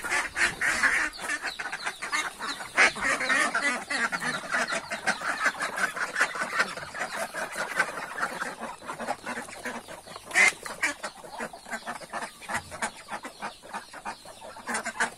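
A flock of laying ducks quacking in rapid, overlapping calls, with one louder call about ten seconds in.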